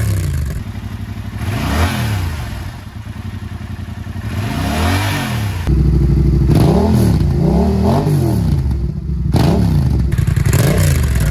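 A 2022 Yamaha YZF-R7's parallel-twin engine running through an M4 exhaust with a dB-killer insert in the tailpipe. It idles and is blipped in about five short revs, each rising and falling in pitch.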